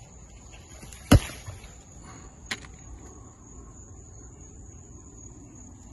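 Handling noise from picking grapes off a vine by hand close to a phone microphone: one sharp knock about a second in and a lighter click about a second and a half later, over a faint steady high-pitched tone.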